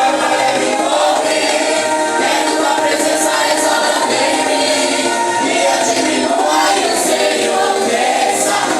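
Choir of voices singing a Christian worship song, sustained and steady.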